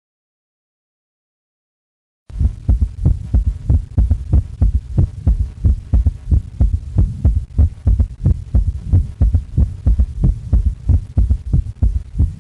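Recorded heart sounds with a third heart sound (S3): dull low thuds repeating quickly in a galloping rhythm, starting after a couple of seconds of silence. In adults an S3 gallop is typical of ventricular volume overload, as in heart failure.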